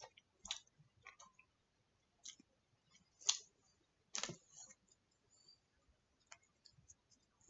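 Faint scattered clicks and taps of a plastic fork working in an aluminium foil tray of poutine, with two louder clicks a little past the middle.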